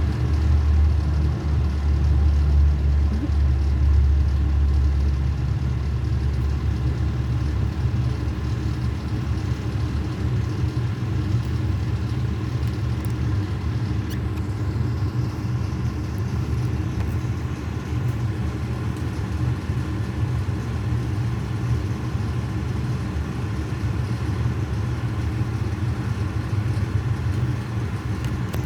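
A vehicle engine running steadily, with a low rumble that is loudest for the first five seconds or so and then settles.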